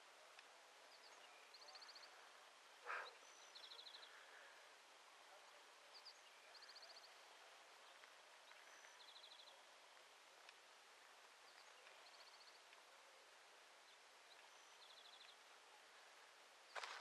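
Near silence with faint bird song: a small bird repeats a short high note followed by a quick trill every couple of seconds. One soft knock about three seconds in.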